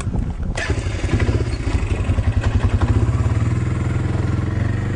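An ATV engine pulls away about half a second in and keeps running at low speed. It is towing a log arch with a 10-foot log hung fully off the ground, and it takes hardly any power to move the load.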